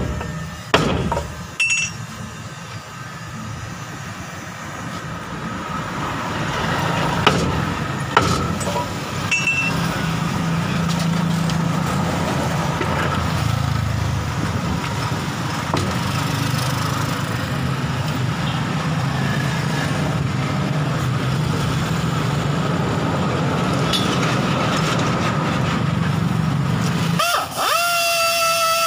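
A handful of sharp metallic clanks from work on a truck wheel in the first ten seconds, some with a brief ring, over a steady low vehicle rumble that grows louder. Music starts near the end.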